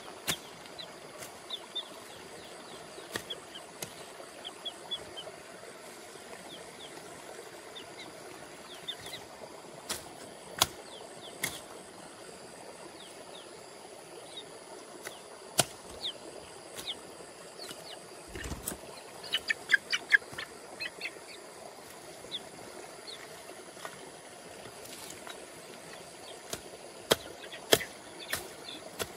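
Machete chopping weeds: scattered sharp chops and knocks at irregular intervals, with birds chirping briefly near the start and again about two-thirds of the way through over a steady outdoor hiss.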